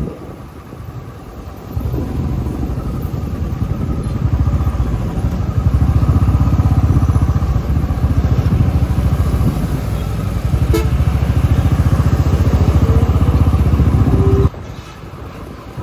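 Motorcycle engine running on the move in town traffic, a steady low pulsing note, quieter for the first two seconds and again near the end.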